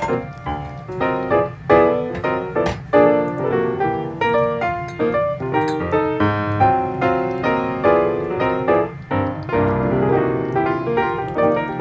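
Background piano music: a continuous run of notes and chords.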